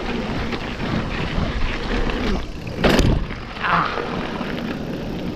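Mountain bike rolling down a rough dirt trail, with steady tyre and wind noise and one sharp clunk about three seconds in.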